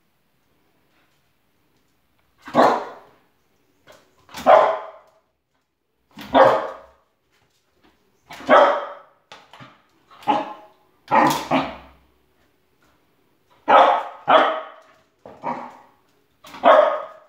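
A spoodle (cocker spaniel–poodle cross) barking at a shadow in about a dozen short, loud single barks. They start a couple of seconds in and come at uneven gaps, a few in quick pairs.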